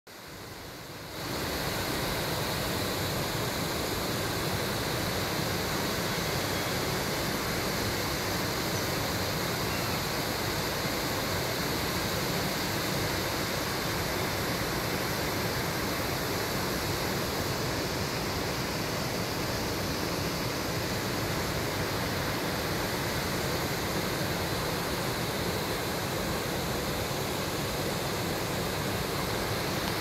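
Waterfall with heavy flow cascading over a wide rock ledge: a steady, even rushing of falling water that comes up sharply about a second in and holds unchanged.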